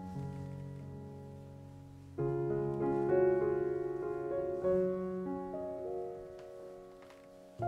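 Slow background piano music: sustained chords that ring and slowly fade, with a new chord struck about two seconds in.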